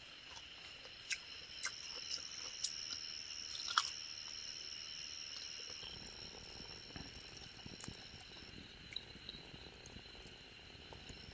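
Night insects trilling steadily at two high pitches throughout. In the first four seconds a few sharp clicks and crunches of someone eating with their hands; from about six seconds in, a campfire crackling and popping.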